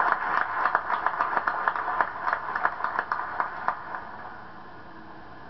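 A small audience clapping, irregular separate claps that die away about four seconds in, leaving the hiss of the camcorder recording.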